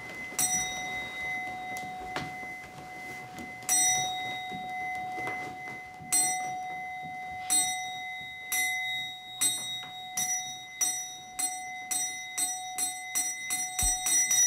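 A metal temple bell struck again and again, over a steady ringing tone. The strikes start slowly, then come faster and faster in an accelerating roll-down, as used to signal a stage of a Zen service.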